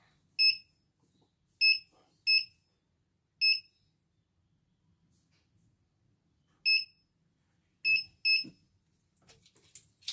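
Button beeper of a CNY portable computer embroidery machine's control panel, giving seven short, high, identical beeps at irregular intervals as its keys are pressed to set up a stitch test.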